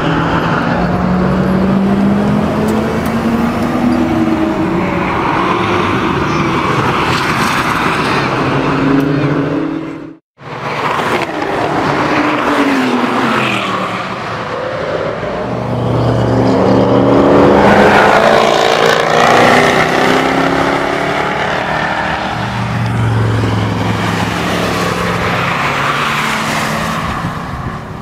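Jaguar F-Type V8 S's supercharged V8 engine revving as the car pulls away, then, after a sudden break about ten seconds in, sports car engines rising and falling in pitch as cars accelerate past on a track.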